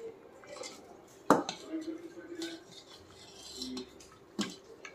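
A utensil stirring curry in a stainless steel pot and knocking against the pot's side: a sharp metallic clank about a second in, another near the end, and lighter scrapes and clinks between.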